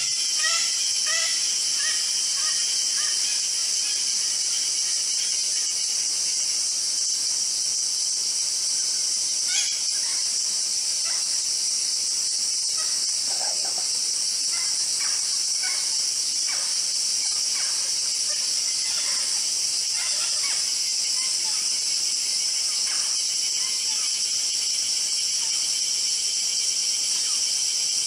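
Steady high-pitched chorus of forest insects, with scattered short bird chirps from about ten seconds in and a quick run of repeated call notes at the very start.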